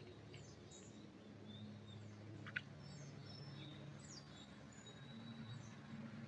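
Faint bird calls in a pine forest: scattered short high chirps and thin whistles. There is one sharp click about two and a half seconds in, and a faint low steady hum underneath.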